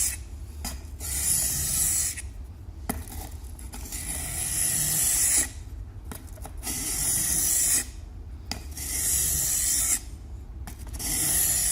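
A stainless steel knife blade scraping along the 1000-grit polishing side of a whetstone, held in an angle guide. It comes in long strokes of about two seconds each, with short pauses between them.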